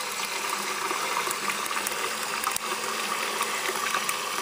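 Tap water from a sink faucet pouring steadily into a metal funnel full of water, splashing and bubbling in the bowl.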